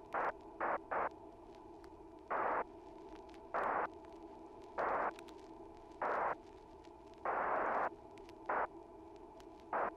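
Electronic music: a steady drone of held tones, broken by irregular short bursts of static-like noise, about a dozen, one held longer about seven seconds in.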